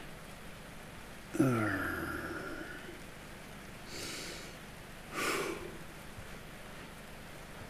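A man's sigh that falls in pitch and fades about a second and a half in, followed by two short breaths or sniffs near four and five seconds, over a faint steady hiss.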